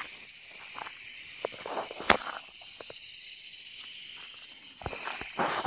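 Night insect chorus: a steady high-pitched drone of insects, with irregular footsteps and rustling close by, a sharp click about two seconds in, and louder rustling near the end.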